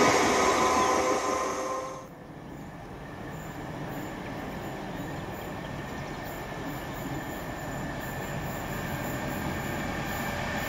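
A passing train dies away over the first two seconds. Then a DB Schenker Class 66 diesel locomotive hauling a freight train approaches under power, its two-stroke V12 engine and wheels on the rails growing steadily louder.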